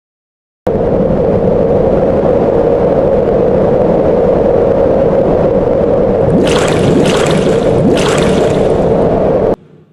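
Loud, steady rushing water that starts abruptly just under a second in and cuts off suddenly near the end, with two brief bursts of brighter hissing spray about six and a half and eight seconds in.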